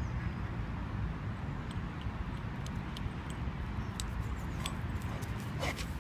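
Steady wind rumble on the phone's microphone, with scattered light clicks and jingles from about a second and a half in as a chocolate Labrador puppy runs up. A brief louder rustle comes near the end as the puppy reaches the phone.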